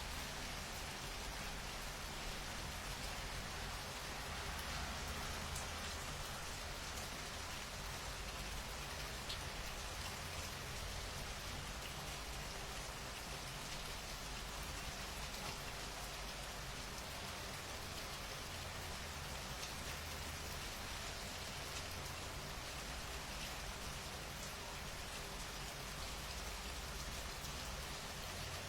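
Steady rain falling and pattering on surfaces, an even hiss with scattered drop ticks and a low rumble underneath.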